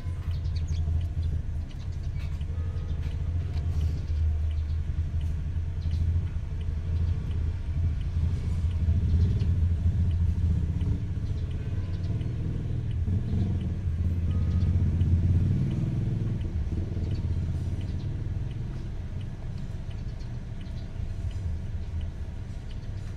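Low, steady vehicle rumble heard from inside a closed car cabin, easing off after about sixteen seconds.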